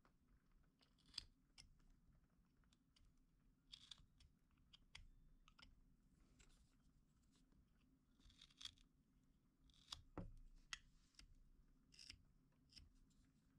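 Carving knife slicing small shavings from a pale wooden figure: faint, irregular scraping cuts and small clicks, a few every second or two.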